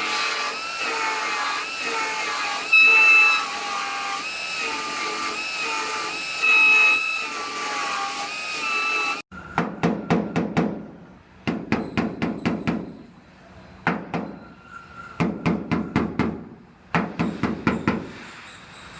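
Power grinder running against sheet-metal truck bedside, a steady whine whose pitch dips and recovers as it bears on the metal, stopping abruptly about nine seconds in. Then come four quick bursts of sharp metal strikes, each a rapid run of several blows.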